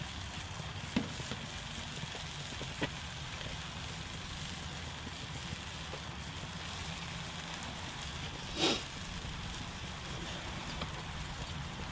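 Ground beef sizzling steadily in a cast iron skillet over the grill's flames, with a few sharp crackles and pops; the loudest comes about eight and a half seconds in.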